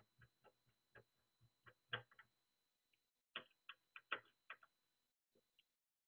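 Faint, irregular clicks of a screwdriver turning hard-drive mounting screws into the steel base of an NVR case. They come in two runs of a few clicks a second, with a pause of about a second between them.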